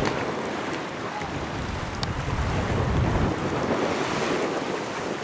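Wind buffeting the microphone in gusts, with the strongest gust about one and a half to three seconds in, over a steady wash of waves on the river.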